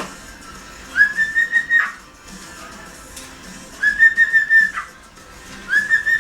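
Cockatiel whistling: three clear, held whistled notes about three seconds apart, each lasting roughly a second, with a short upward slide at the start and a drop at the end.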